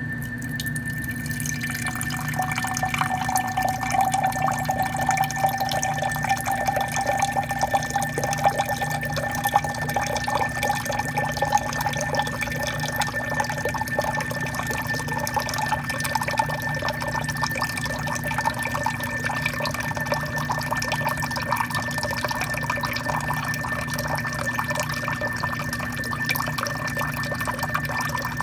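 Tap water pouring in a thin stream into a glass Pyrex measuring cup in a stainless steel sink, the pitch of the splashing rising slowly as the cup fills. A steady hum runs underneath.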